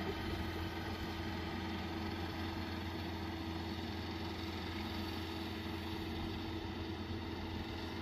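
Rural King RK55 tractor's diesel engine running steadily while it pulls a Case 3450 square baler, heard as an even drone with a constant tone.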